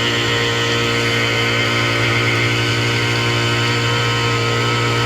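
Power screed's small Honda gasoline engine running steadily at a constant speed, vibrating the screed board to settle fresh concrete, heard close up.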